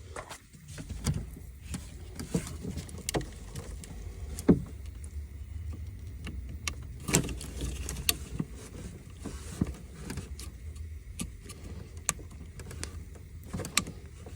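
Irregular clicks, knocks and clanks of hand tools and car parts being handled during reassembly, a second or two apart, the loudest about four and a half seconds in, over a low steady hum.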